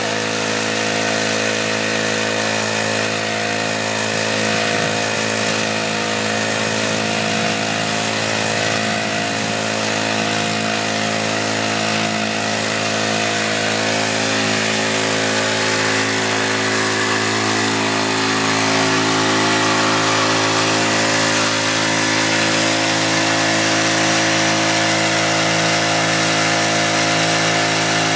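Small gold dredge's motor running steadily, with a continuous wash of water noise over it; the motor's tone shifts a little and gets slightly louder about two-thirds of the way in.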